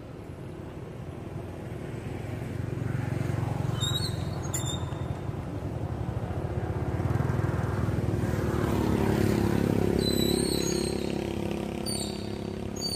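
A motor vehicle engine passing nearby: a low rumble that builds over several seconds, is loudest about two-thirds of the way through, then fades. A few short high chirps are heard over it.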